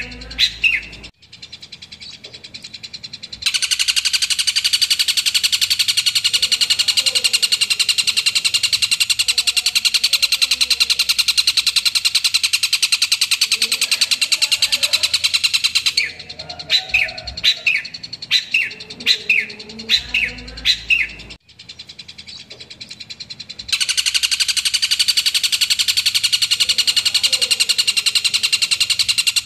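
Long-tailed shrike (cendet) singing: a loud, very fast rattling trill that runs on for about twelve seconds, then a string of short, sharp separate notes. After a sudden break, the rapid trill starts again.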